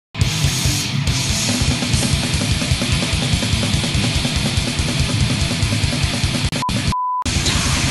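Heavy metal music with fast, rapid-fire bass-drum beats, starting abruptly. Near the end it cuts out for a moment while a short steady test-tone beep sounds, then the music resumes.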